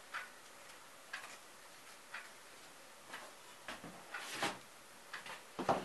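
A clock ticking about once a second. Around four seconds in and again near the end come rustling and short snaps as fresh bay laurel leaves are picked off a potted plant.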